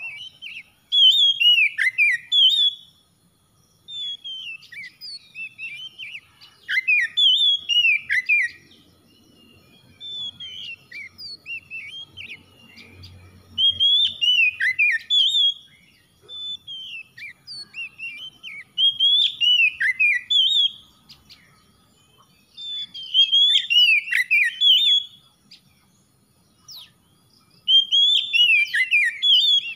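Oriental magpie-robin singing: clear, whistled phrases of sliding notes in bursts of one to three seconds, with short pauses between them.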